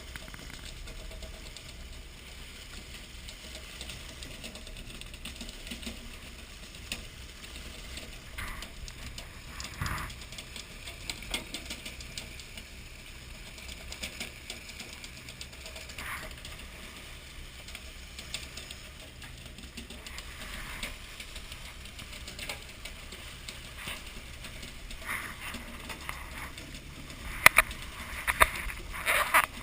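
Working deck of a fishing boat at sea: a steady low engine drone under scattered knocks and clatter, with a run of sharp, loud knocks near the end.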